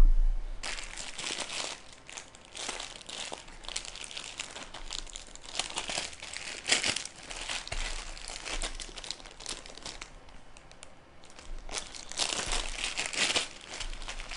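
Small clear plastic bags holding screws and case accessories crinkling as they are handled and pulled open, in irregular bursts. The crinkling eases briefly about ten seconds in, then picks up again.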